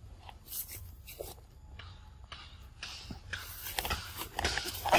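Young macaque biting into and chewing a mango, short wet crunching bites. Near the end it gets louder and denser as the monkey scrambles off and rustles through leaves.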